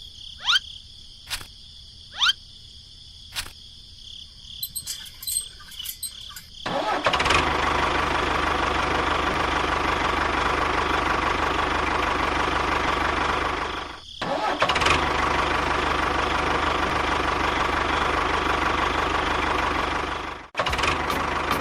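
An engine starts about seven seconds in and runs steadily, cutting out briefly about halfway and stopping shortly before the end. Before it, a few short rising chirps over a quiet background.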